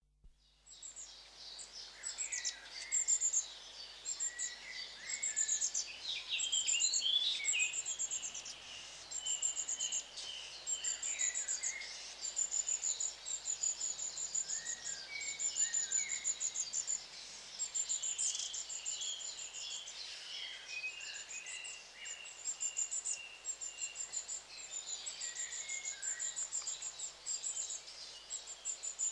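A flock of long-tailed tits calling. Thin, very high-pitched notes come in quick runs throughout, with lower twittering chirps mixed in.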